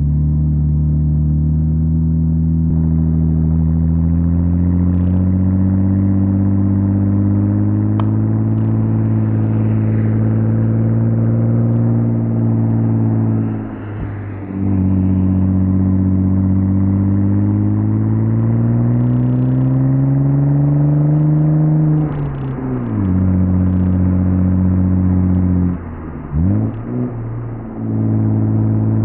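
1998 Audi S4 B5's 2.7-litre twin-turbo V6 pulling through the gears: the revs climb slowly and steadily, drop sharply at a gear change about halfway through and again a little later, then dip and rise a few times in quick succession near the end.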